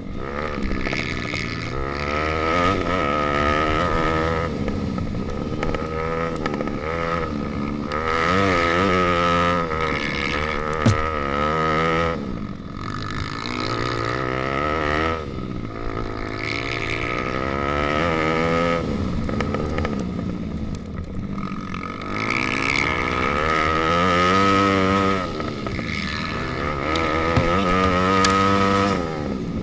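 Pit bike engine revving up and down over and over as the rider accelerates and backs off through the course, heard close from onboard, with a steady high whine throughout and one sharp knock about eleven seconds in.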